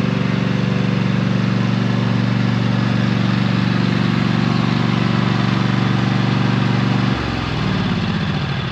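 A Craftsman riding mower's Kohler 7000 series 20 hp engine running steadily, then shut off about seven seconds in, its pitch falling as it winds down.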